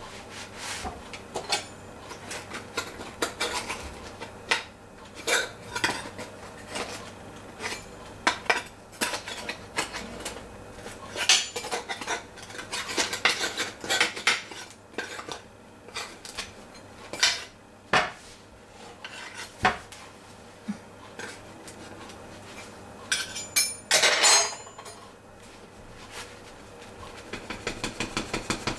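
Metal bread tin clattering and knocking as a freshly baked loaf is shaken and tapped out of it. Irregular clanks and scrapes, with a longer scraping noise about 24 seconds in and a quick run of taps at the very end.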